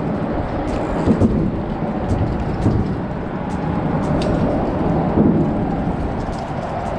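Deep, steady rumble of traffic on the concrete bridge deck overhead, heard from underneath, with a few faint light clicks on top.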